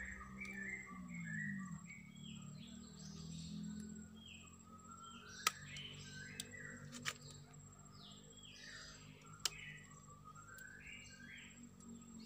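Small birds chirping over and over in short repeated calls. Three sharp snips of hand pruning shears stand out above them, about halfway through, again a second and a half later, and again near three quarters of the way. A low steady hum runs underneath.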